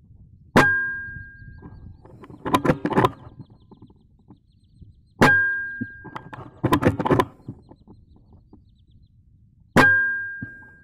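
Air rifle fired three times, about four and a half seconds apart. Each shot is a sharp crack with a brief metallic ring. A quick run of mechanical clicks follows about two seconds after each of the first two shots as the rifle is re-cocked for the next shot.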